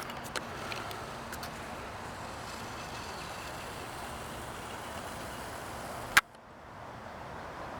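Steady outdoor background noise, with a sharp click about six seconds in, after which the noise drops out briefly and then returns.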